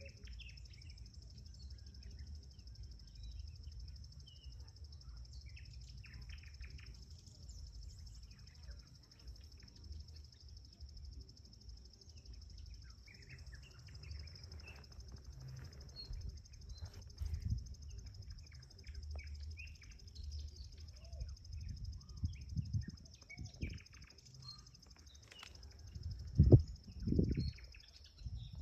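Small birds chirping now and then over a steady high insect drone, with a low rumble underneath. A few loud low thumps on the microphone near the end.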